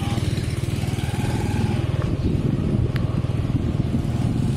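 Small motorcycle engine running at a steady cruise, heard from on the bike, a low even drone with road and wind noise.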